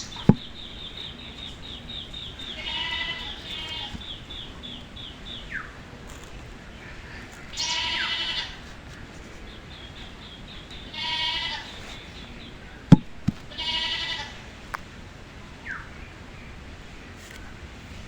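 Four short, wavering bleat-like animal calls, with a fast, high-pitched chirping trill running through the first few seconds and again midway. Two sharp clicks, one near the start and one about 13 seconds in.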